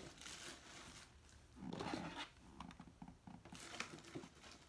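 Rustling and small clicks of things being handled and packed into a bag, with a louder rustle about two seconds in.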